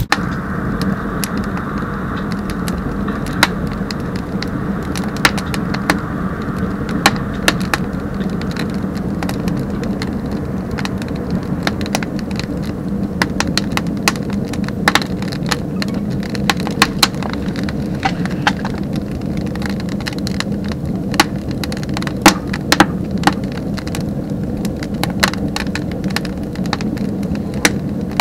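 Batchbox rocket burner firing hard: the steady rush of the fire's draft, with frequent sharp crackles and pops from the wood burning down to charcoal in the firebox.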